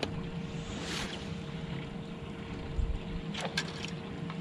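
Bass boat's electric trolling motor humming steadily over a low wind rumble, with a few faint clicks in the second half.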